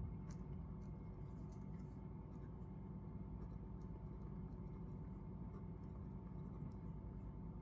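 Pen writing on paper: faint scratches and small taps of the nib, over a steady low hum.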